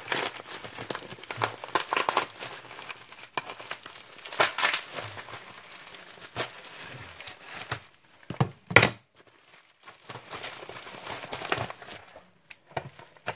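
Plastic packaging crinkling and rustling in irregular bursts as a parcel is unwrapped, with one sharper, louder crackle nearly nine seconds in.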